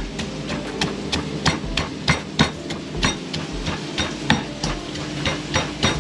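Garlic, black pepper and cumin being pounded with a pestle in a small mortar: sharp, irregular knocks, about three a second.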